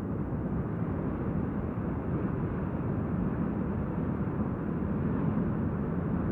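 Steady low rushing noise picked up by an underwater ROV's camera, with no distinct tone or knock.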